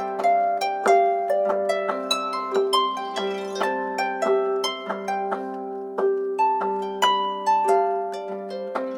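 Samsung Galaxy A5 (2017) stock ringtone playing: a melody of plucked, harp-like notes, about two to three a second, over a low held accompaniment.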